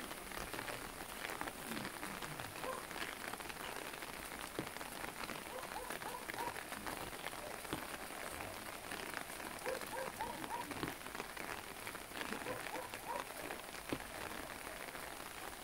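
Steady light rain pattering on open umbrellas, with faint, indistinct voices murmuring among the crowd.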